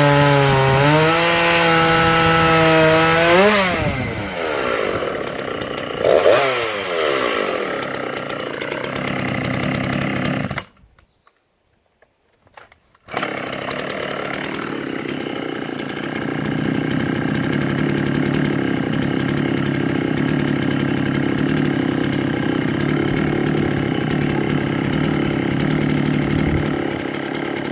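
Dolmar PS-7900 two-stroke chainsaw running at high revs, then falling away in pitch as it drops back about four seconds in. After a sudden break of about two seconds of silence, it runs steadily at a lower speed.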